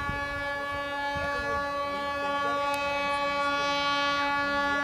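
Diesel locomotive horn sounding one long, steady blast at a single pitch over the low rumble of the moving train.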